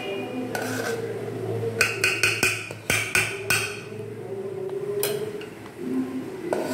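A steel spoon clinking and scraping against an aluminium cooking pot as rice is scooped out, with a quick run of sharp, ringing clinks about two seconds in and one more near the end, over soft background music.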